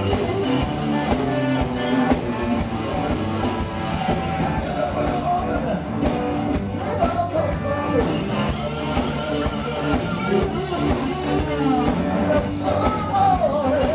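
Blues-rock band playing live: electric guitars over electric bass and a drum kit.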